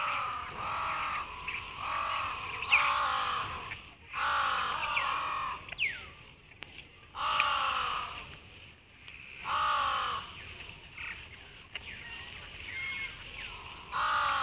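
Crows cawing in repeated bouts of harsh calls several seconds apart, with a few thin bird chirps in between.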